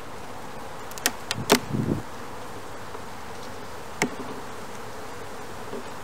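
Honeybees humming steadily over an open hive. A few sharp clicks and a short knock come from the metal hive tool and the wooden frames as they are pushed together: several a little after one second and one at about four seconds.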